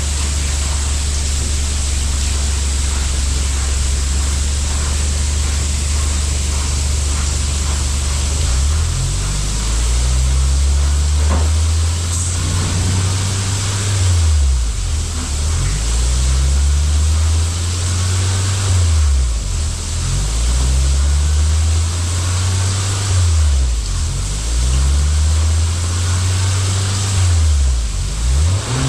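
Honda CR-V's 1.5-litre turbocharged four-cylinder idling steadily through an aftermarket dual-canister rear muffler with left and right outlets. About eight seconds in it starts being revved, several times over, each rev rising and falling back.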